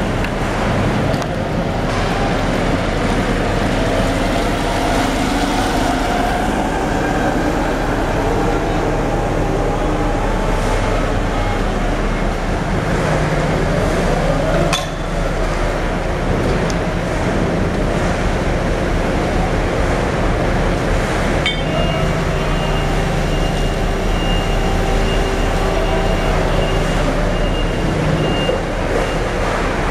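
Steady machinery noise from a tuna carrier ship and its cargo-crane winch as it lowers and hoists slings of bluefin tuna. There is a sharp metal clank about halfway through and another a few seconds later.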